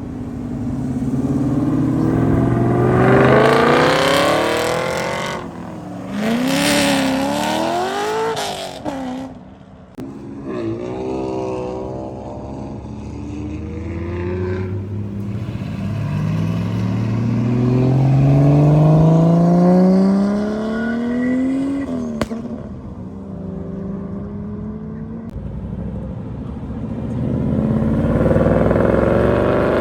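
Car engines revving and accelerating past one after another, each pitch climbing as the car speeds up. About a third of the way through there is a stretch of quick throttle blips rising and falling, and the sound changes abruptly several times.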